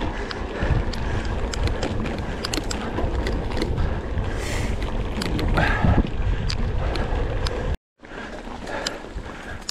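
Mountain bike riding fast over a dirt trail: wind rushing over the camera microphone, a low tyre rumble and frequent sharp clicks and rattles from the bike. The sound cuts out for a moment near the end, then resumes.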